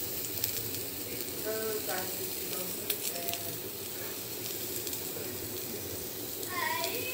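Brinjal (eggplant) slices sizzling steadily as they fry in hot oil in a frying pan.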